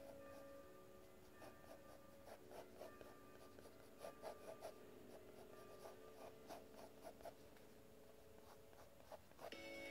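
Pencil sketching on sketchbook paper: soft scratchy strokes in short bursts, over faint held musical tones.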